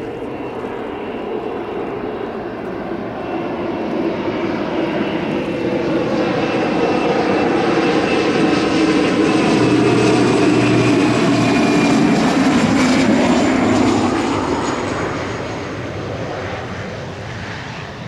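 Beech King Air B200's twin PT6A turboprop engines as the aircraft passes close by on landing: a whining propeller drone that grows louder, peaks about ten to fourteen seconds in, then fades with its whine sliding down in pitch.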